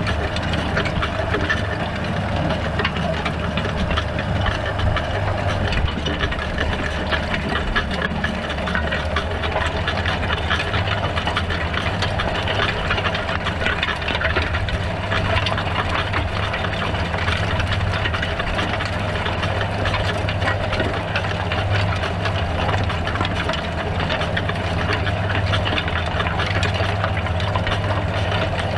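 John Deere 6930 tractor's six-cylinder diesel engine running steadily under load as it pulls a 4 m Unia Mars cultivator. The cultivator's tines and crumbler rollers rattle and scrape through the soil close by.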